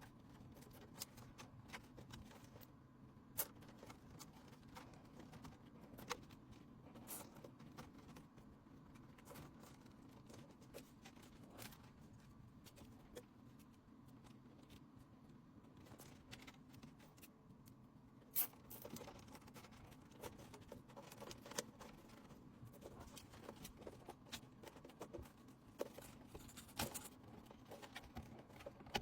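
Faint, scattered clicks and light scrapes of small hard parts being handled, over a low steady hum; a few sharper clicks stand out.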